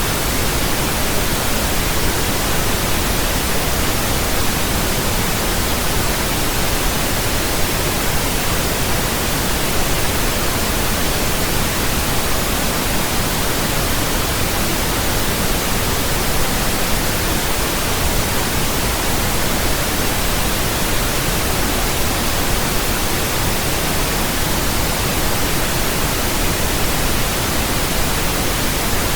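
Steady synthetic pink noise: an even, unchanging hiss with a deeper rumble than white noise.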